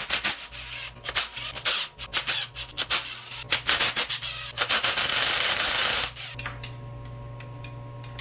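Cordless driver spinning bolts on an engine block in a string of short bursts, then one longer steady run about four and a half seconds in that stops at about six seconds. A steady low hum stays underneath.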